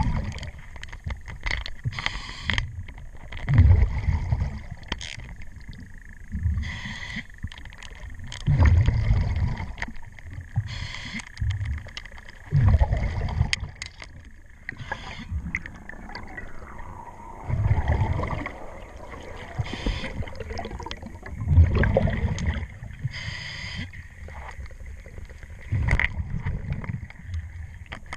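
A diver breathing underwater through a regulator: a hiss on each inhalation, then a low burble of exhaust bubbles about every four to five seconds. Scattered clicks of a ratchet wrench tightening a zinc anode on the propeller shaft run between the breaths.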